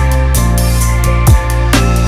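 Background music: an electronic track with a steady beat, sustained bass notes and a deep, falling bass-drum thump about 1.3 s in.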